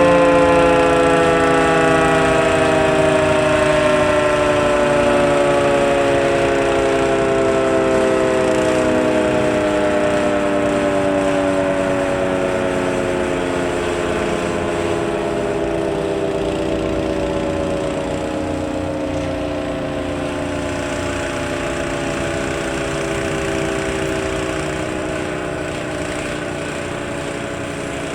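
Federal Signal 3T22 three-tone outdoor warning siren winding down after its alert cycle: its chord slides slowly lower and fades, over a low rumble.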